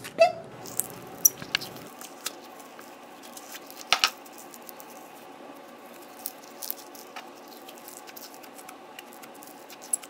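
Crunchy foam-bead putty crackling and squishing as fingers knead it and press it into a small plastic cup: scattered small crackles and clicks, with one sharper click about four seconds in.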